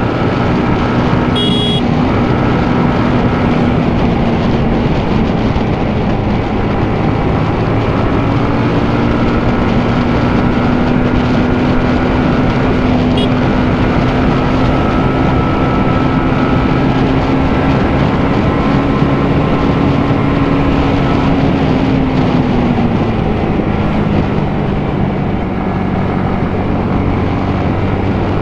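Yamaha MT-15's single-cylinder four-stroke engine running steadily under way, heard from on the bike. Its pitch rises a little early on, holds, then drops about three-quarters of the way through as the bike slows.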